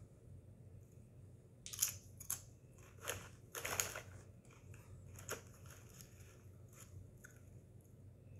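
Crinkling of a foil Doritos chip bag and crunching of tortilla chips: a cluster of sharp crackles between about two and four seconds in, then a few fainter ones.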